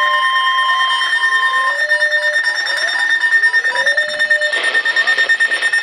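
Emergency alert tones from weather-alert equipment sounding a severe thunderstorm warning, several at once: a steady high tone throughout, a lower steady tone that stops about a second and a half in, and a slow rising sweep that repeats about every second and a half. A hiss of noise joins near the end.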